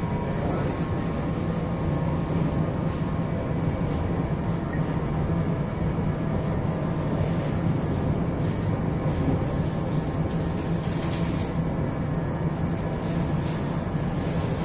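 Steady cabin noise inside a TIC Trens Series 9500 train carriage, with a constant low hum. A short hiss comes about eleven seconds in.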